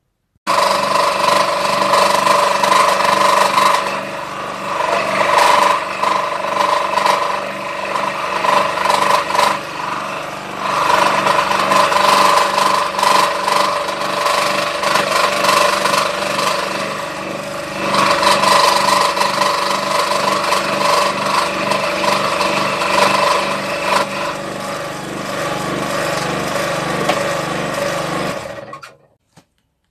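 Electric scroll saw running, its reciprocating blade cutting through MDF board: a steady tone with a fast, even chatter, getting louder and quieter as the board is fed through the cut. It starts about half a second in and stops near the end.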